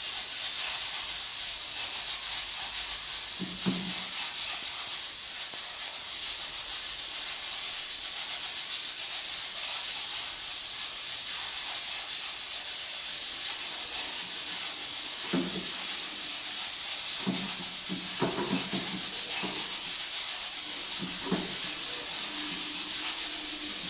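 Steady high-pitched hiss of background recording noise in a quiet room, with a few faint, short low sounds, most of them in the second half.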